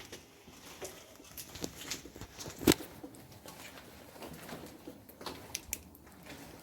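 Irregular footsteps and scuffs on a gritty concrete floor, a scatter of short clicks, with one sharp, louder knock a little under three seconds in.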